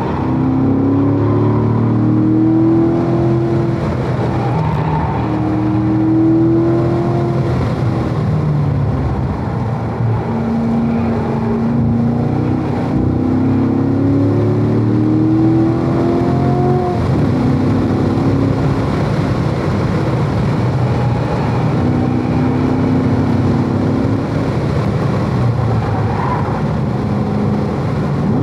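Chevrolet Corvette V8 engine running hard in third gear at about 3,000–4,000 rpm on a race track, its pitch rising several times under acceleration and dropping back as the throttle comes off for corners, heard from inside the cabin.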